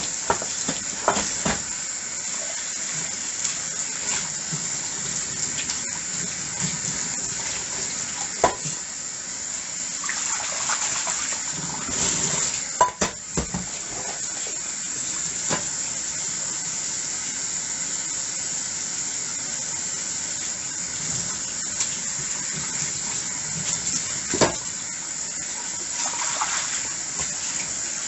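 Tap water running steadily into a sink while dishes are washed, with a few scattered clinks and knocks of dishes against each other or the sink.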